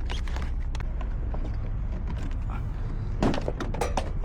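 Scattered clicks and small knocks of a locksmith working lockout tools at a locked vehicle door, with a denser cluster about three seconds in, over a steady low rumble.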